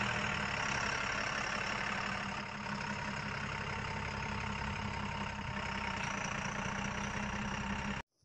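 A heavy engine idling steadily and evenly, like a diesel truck at idle. It cuts off abruptly near the end.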